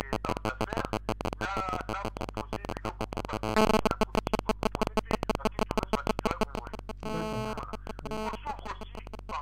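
Garbled, choppy audio: fragments of a voice broken up by rapid dropouts and glitches, over a steady low hum.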